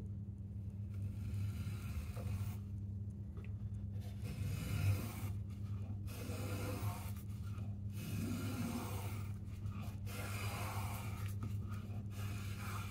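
Robert Marples spokeshave with a freshly honed blade shaving a wooden spoon handle: a run of slicing strokes, each lasting a second or two, with short pauses between them as thin continuous curls come off. A steady low hum runs underneath.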